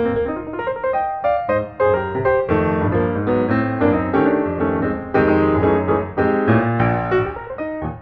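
Background piano music: a run of struck notes and chords, each fading after it is played.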